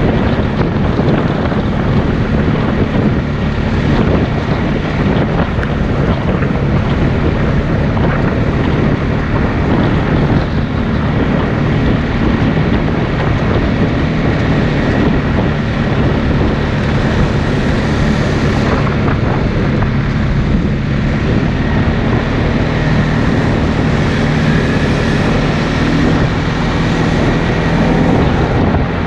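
ATV engine running steadily while riding a dirt trail, with wind noise on the microphone.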